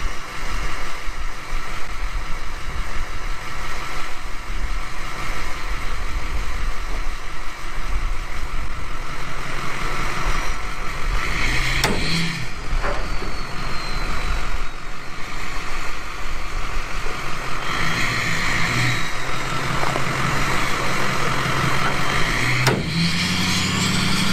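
Ford pickup truck engine running under load as it tugs an old Rumely tractor out of the mud on a tow strap, with a few sharp knocks along the way.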